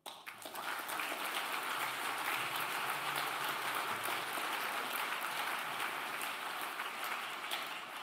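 Audience applauding: it starts abruptly, holds steady, and begins to fade near the end.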